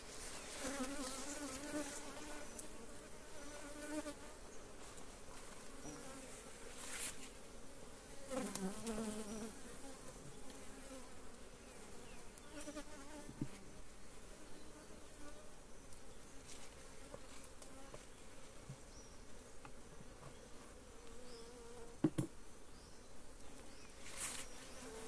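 Honeybees buzzing close around an open hive, the pitch wavering as individual bees fly past, with a few sharp knocks scattered through.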